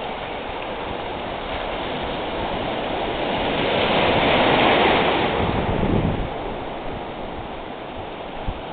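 Ocean surf washing ashore in shallow water, a steady rush that swells louder midway as a wave breaks and runs in, then ebbs away.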